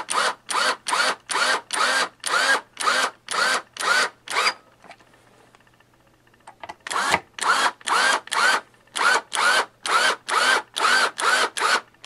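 Power drill driving screws into a wooden speaker cabinet in short pulses of the trigger. Each burst is a brief whine that rises and falls in pitch, about two and a half a second. The bursts stop for about two seconds near the middle, then go on again.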